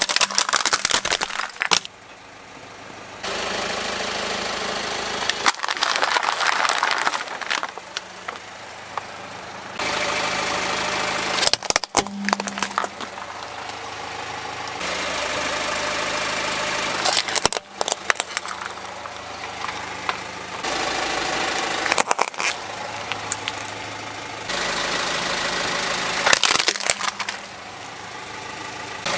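A car's tyre crushing plastic toy trucks: a few sharp cracks and crunches of breaking plastic over the car's engine running.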